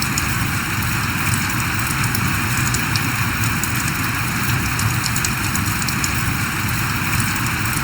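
Steady rain falling: an even, unbroken hiss with scattered sharp ticks of individual drops.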